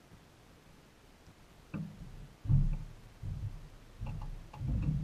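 Several irregular low thuds with light knocks, footsteps on a floating wooden dock; the heaviest thud comes about two and a half seconds in and another cluster near the end.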